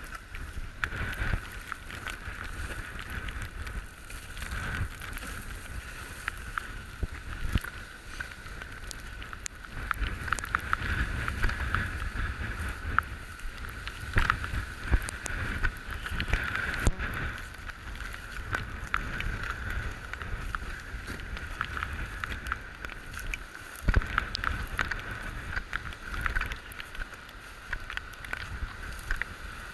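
A steady drone, likely a motor, runs throughout with wind buffeting the microphone and scattered clicks and knocks.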